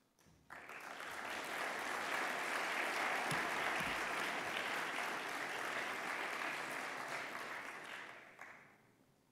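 Audience applauding in a large hall: clapping starts about half a second in, builds quickly, holds steady, then dies away near the end.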